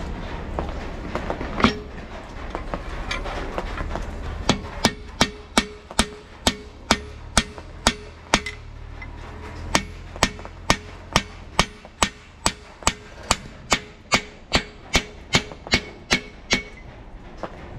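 Hammer blows on metal, a steady run of strikes at about two and a half a second, each ringing briefly, with one short pause partway through. Before the run starts there are scattered, irregular knocks.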